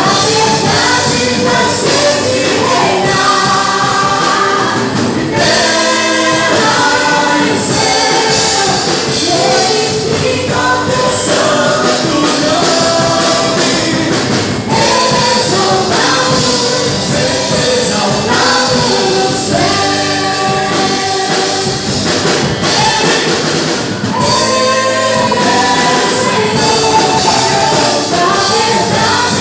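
Portuguese-language gospel worship song: several voices singing together over band accompaniment with a tambourine.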